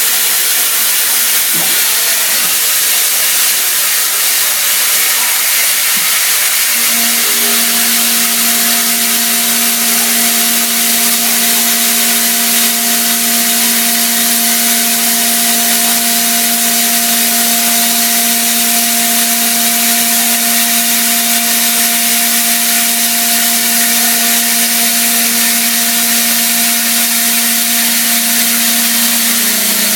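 Haas CNC mill cutting silicon-carbide-reinforced aluminium with a CVD diamond end mill under flood coolant: a loud, steady coolant hiss, with a steady spindle-and-cutting hum that comes in about seven seconds in and drops slightly in pitch near the end.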